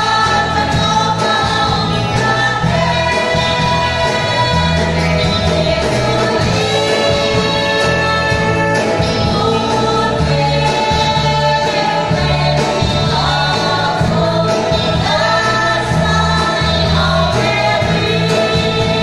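A small worship group singing a hymn together, men's and women's voices, accompanied by electric guitars with a steady bass line, heard live in a church hall.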